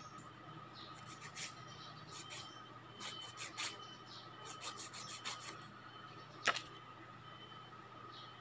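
Nail file rasping across a fingernail in short, quick strokes that come in little runs, then one sharp click about two-thirds of the way through.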